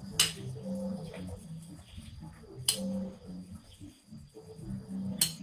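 Three sharp clinks or knocks of kitchen utensils on the counter, about two and a half seconds apart, over a low background murmur.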